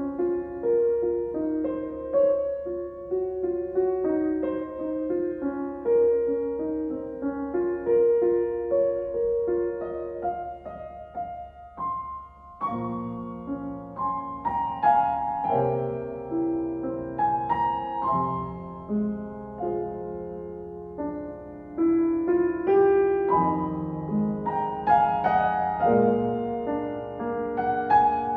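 Slow, gentle piano music: a sparse melody at first, with fuller, lower chords joining about halfway through.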